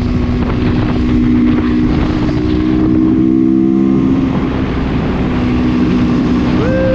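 Off-road motorcycle engine running at a fairly steady speed, its pitch holding almost constant.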